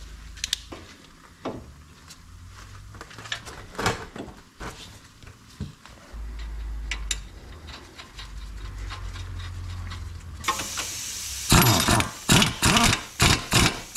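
Air impact wrench running the outer tie rod end nut down in five or six short, loud bursts near the end, with a hiss of air starting just before. Earlier there are scattered light clicks and knocks as the tie rod end is fitted into the knuckle.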